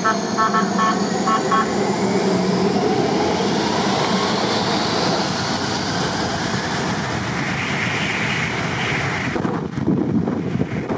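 Jet airliner engines running loudly, with whines that rise slowly in pitch, and a few short high beeps near the start. Near the end the sound gives way to wind gusting on the microphone.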